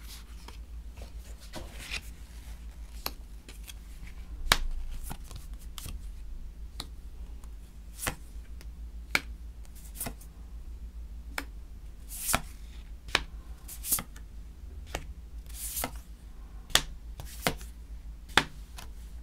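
Tarot cards being laid down one by one on a tabletop: a string of light taps and slaps at irregular intervals, with a little soft sliding of card on card.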